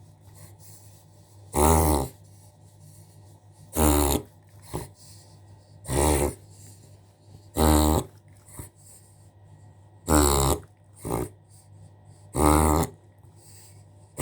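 Dog reverse sneezing: a run of six loud, harsh snorting inhalations, about two seconds apart, each lasting about half a second. It is a spasm of the soft palate and throat, the dog pulling air sharply in through its nose.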